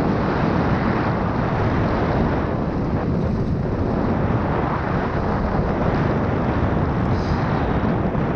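Steady rush of wind on the microphone of a mountain bike descending fast, mixed with its tyres rolling over a loose gravel track.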